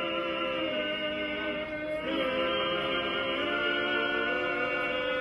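Eastern Orthodox clergy chanting a liturgical hymn together in male voices, long held notes that shift pitch about two seconds in, as part of a service blessing a building.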